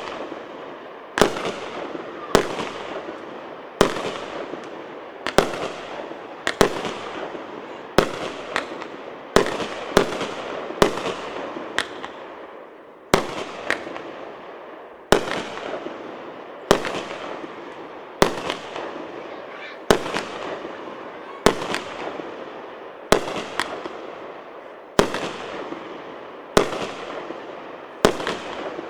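A 138-shot, 1.2-inch firework cake battery firing: about twenty sharp reports, roughly one every second and a half, each followed by a fading hiss.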